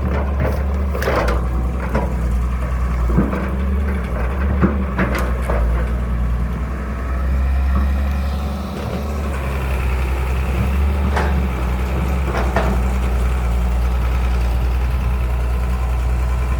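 Excavator's diesel engine running steadily with a deep drone, with sharp knocks and clanks, several in the first few seconds and two more later on.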